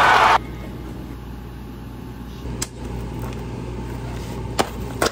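Hands unwrapping the plastic packaging on a tray of green onion kimchi, with a few sharp crinkles and clicks of the plastic, over a low steady hum. A loud burst of voices and music cuts off abruptly in the first half-second.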